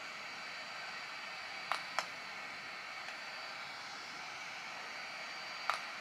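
At-home laser hair-removal handset running with a steady fan-like hiss, with two pairs of sharp clicks, about two seconds in and again near the end, as it is pressed and fired against the skin.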